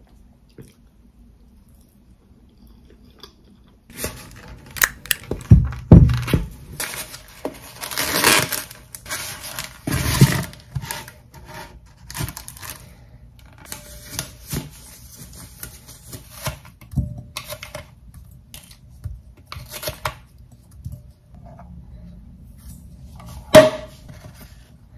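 Plastic wrap crinkling and tearing, and ground beef being scraped off a foam meat tray into a glass mixing bowl: irregular rustles, scrapes and taps starting about four seconds in. One sharp click near the end.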